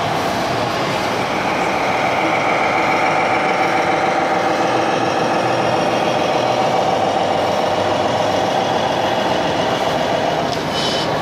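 Radio-controlled scale model truck running: a steady mechanical hum with a whine that fades out near the end.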